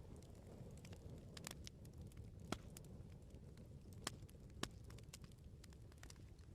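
Wood fire burning with a faint low rush and scattered small crackles, and three louder snaps of burning wood near the middle.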